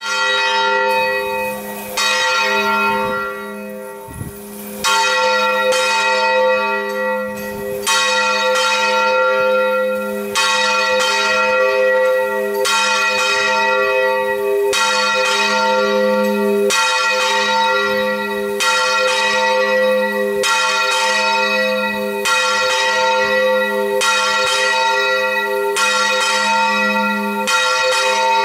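A 368 kg church bell swinging right over in full rotation (volteo), its clapper striking about once a second with each stroke ringing on into the next. A few seconds in there is a longer, quieter gap between strokes.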